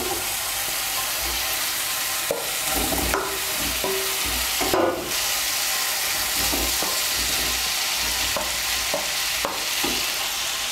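Spice paste sizzling in a non-stick kadai with a steady hiss. A spatula scrapes and stirs through it, with a few short knocks as fried potato pieces and soya chunks are tipped in and turned over.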